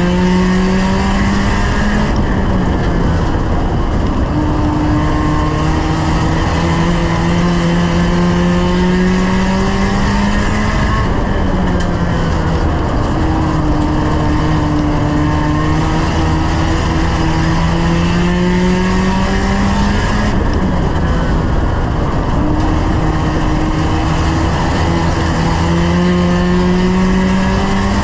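1-litre stock car engine running hard, heard from inside the stripped cabin. The engine note climbs slowly in pitch under throttle, then drops sharply three times, about every nine seconds.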